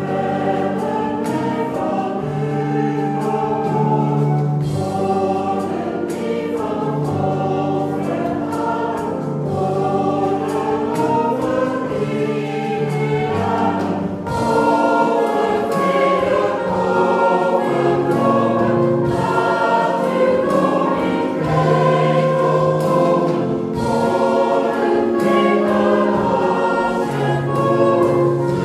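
Mixed choir singing a modern Dutch church song, accompanied by a small combo with piano and drum kit, the drums ticking steadily. The music grows a little fuller about halfway through.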